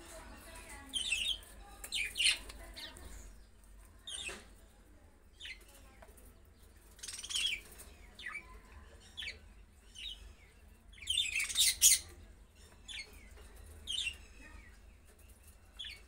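Budgerigars chirping in short, scattered bursts, the loudest cluster of chirps about three quarters of the way through.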